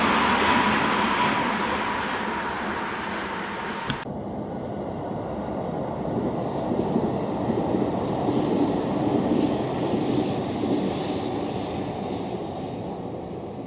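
Train running past and fading away, with a steady whine at first. About four seconds in, the sound cuts abruptly to a duller, low rumbling noise that swells and eases.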